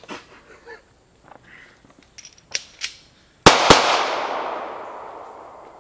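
Two loud blasts from pyrotechnic IED simulators about three and a half seconds in, a quarter second apart, echoing away for about two seconds. A few lighter pops and cracks come before them.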